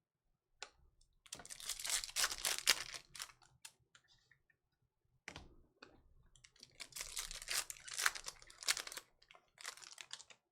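Foil trading-card packs being torn open and the cards handled: crinkling, tearing and sharp clicky rustling in two stretches, the second starting about five seconds in.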